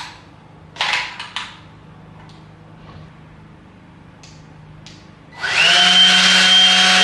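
A few clicks and knocks as an electric orbital sander is handled, then it is switched on about five and a half seconds in and runs loud and steady with a whine.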